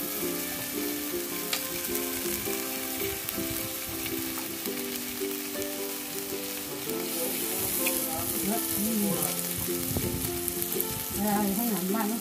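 Raw pork slices sizzling on the hot domed grill of a charcoal mookata, a steady frying hiss, over background music with a melody.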